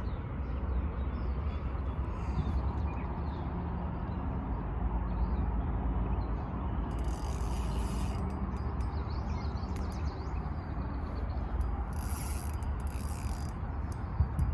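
Fishing reel being cranked to retrieve a lure, a steady mechanical whirr from its gears, with two brief hissy bursts about seven and twelve seconds in.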